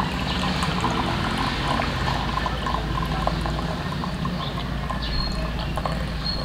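Coffee poured in a thin, steady stream from a glass carafe into a ceramic mug, with a steady low hum underneath.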